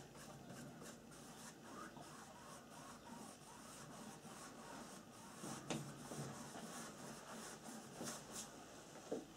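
Faint swishing of a flat paintbrush stroked back and forth across a stretched canvas, blending wet paint, with a couple of light clicks.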